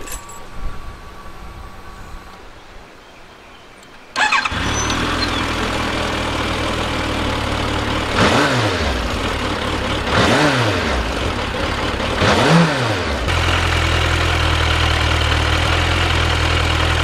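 Suzuki Bandit motorcycle's inline-four engine: a click as the ignition key is turned on, then about four seconds in the engine starts and settles into an idle. The throttle is blipped three times, each rev rising and falling, before it idles steadily again.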